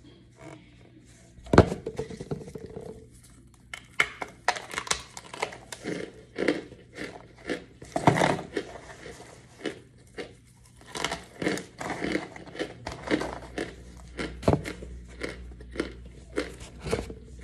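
Dampened, powdery chalk-like blocks crunching and crumbling as they are squeezed apart by hand and bitten, a run of irregular crisp crunches, the loudest about a second and a half in and again about eight seconds in.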